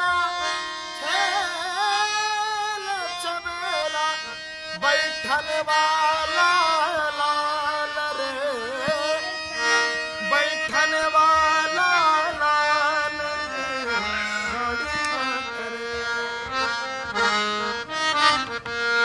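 Harmonium playing a melody while a man sings a Varkari kirtan devotional song, his voice gliding in ornamented lines over the reeds' held notes.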